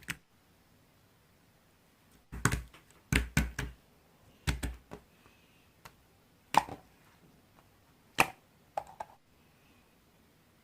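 Slime being handled and pressed, making a handful of sharp clicking pops at irregular intervals, with quiet between them.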